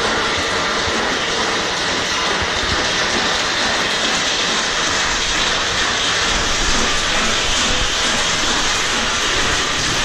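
A machine running steadily: a continuous, even mechanical noise with no breaks or change in level.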